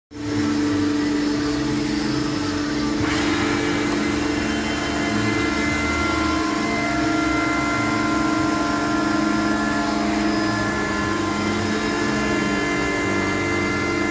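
Spindle moulder of a Felder CF 731 combination woodworking machine running steadily unloaded: an even electric-motor hum with a constant whine.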